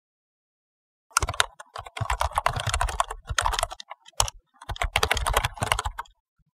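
Keyboard typing sound effect: rapid runs of key clicks in two bursts with a short pause between, as each line of text types onto the screen.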